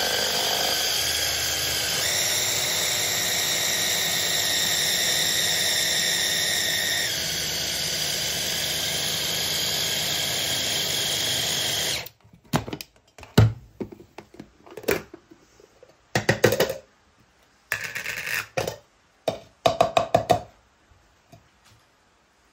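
Electric mini chopper's motor whirring steadily as it chops fresh parsley and herbs, its pitch stepping a little twice, then cutting off about halfway through. A series of short plastic knocks and clatters follows as the chopper's motor top and bowl are handled.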